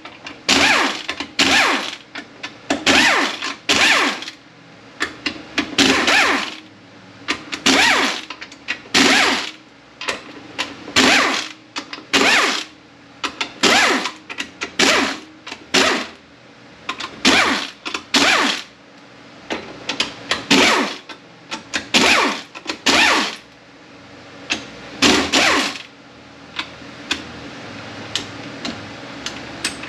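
Power driver motor running in short bursts, about one a second, spinning out the bolts of an automatic transmission's valve body. The bursts stop a few seconds before the end.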